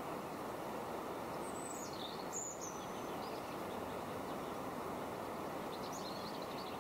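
Steady rush of flowing river water, with a few high bird calls over it: falling calls between one and three seconds in, and a short run of chirps near the end.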